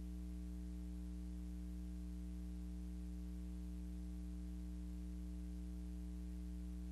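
Steady low electrical hum with a faint even hiss, unchanging throughout; no other sound.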